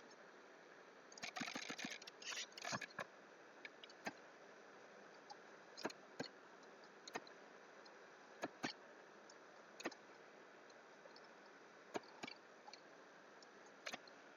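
Faint computer mouse clicks and keyboard keystrokes: a quick run of clicks about a second in, then single sharp clicks every second or two over a low room hiss.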